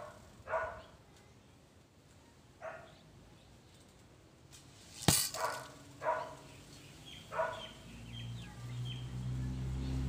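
A dog barking now and then, about five short barks. About five seconds in comes one sharp smack, the loudest sound, as an arrow lands beside the target. A low hum builds near the end.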